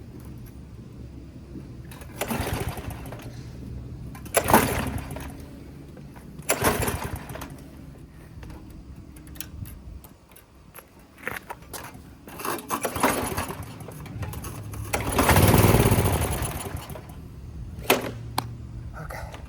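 Craftsman pressure washer's Briggs & Stratton engine being pull-started about six times without staying running. The owner traces the hard starting to a clogged hole in the bolt that holds the carburetor bowl.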